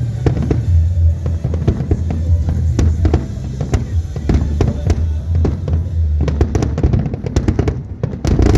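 Fireworks going off in quick succession, many sharp bangs and crackles, over music with a steady deep bass that drops away about six seconds in.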